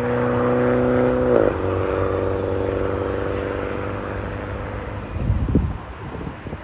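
Jet aircraft engines passing with a steady drone of several pitched tones that fades over the first few seconds, followed by wind gusting on the microphone near the end.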